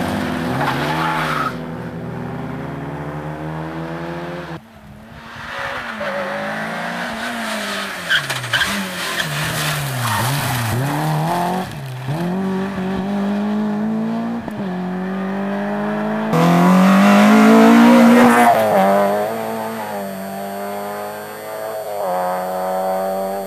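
Rally cars at speed on a special stage, engines revving up and dropping off again and again through gear changes, with tyres squealing. It is loudest about two-thirds of the way through.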